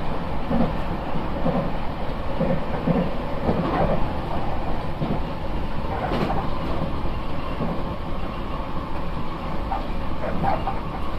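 Nankai airport express electric train running between stations, heard from inside the car: a steady rumble of wheels on rails and running gear.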